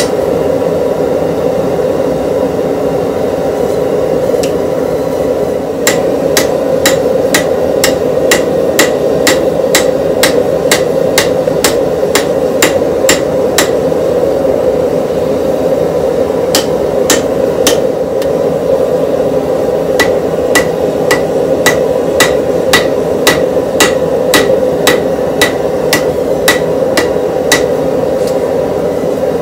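Hand hammer striking red-hot steel on a small steel anvil, forging a spatula blade. The blows are sharp and ringing and come in runs of about two a second, with a pause of a few seconds midway. A steady low rushing hum runs underneath.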